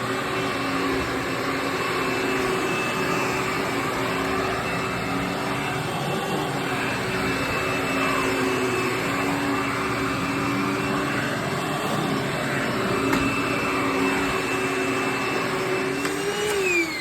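Hoover WindTunnel bagless twin-chamber upright vacuum, the Anniversary Edition with its TTI motor, running steadily with a constant motor whine. Near the end it is switched off and the whine falls in pitch as the motor winds down.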